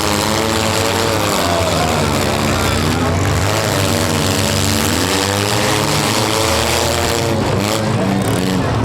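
Several small four- and six-cylinder demolition derby car engines revving, their pitches rising and falling over one another as the cars accelerate and back off.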